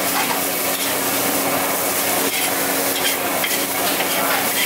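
Rice vermicelli sizzling in a hot wok as it is stir-fried, with a metal spatula and a wooden fork scraping and tossing it against the wok. A steady low hum runs underneath.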